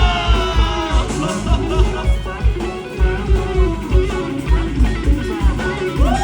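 Live band playing an electric guitar solo, with bending lead lines over a steady kick-drum beat.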